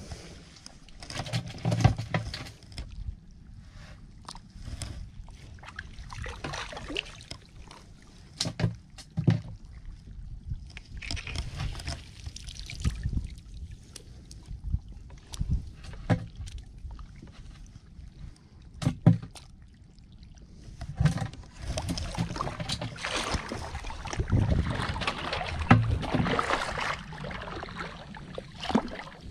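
Shallow seawater splashing and sloshing irregularly as long-handled scoop nets are moved through it, with a few sharp knocks. The splashing is busier and more continuous in the last several seconds.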